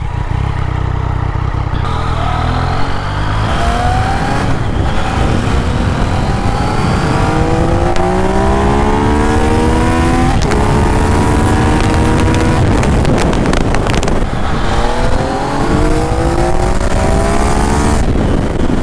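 Yamaha XSR900's three-cylinder engine through a MIVV Oval carbon slip-on exhaust, idling briefly and then pulling away from a stop, its pitch rising through several gears with a shift at about ten seconds and another a few seconds later, and easing off near the end. Wind rushes over the microphone.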